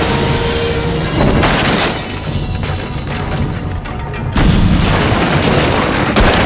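Film fight soundtrack: loud dramatic music with booming hits, loud surges about a second and a half in and again about four and a half seconds in, and a sharp crash of a table breaking near the end.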